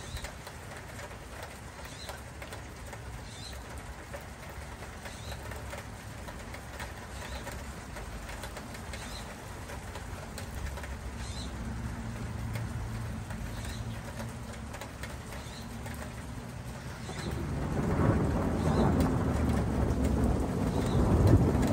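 Distant thunder rumbling, swelling and growing louder from about three-quarters of the way through, over a steady low background. A small bird chirps at a steady pace, about once a second.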